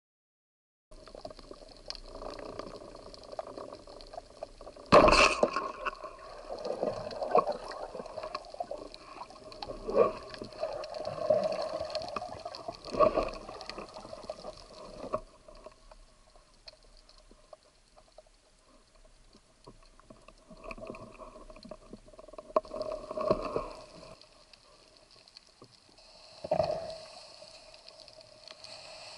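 Underwater sound in shallow sea: muffled water movement and bubbling, with several sharp clacks, the loudest about five seconds in.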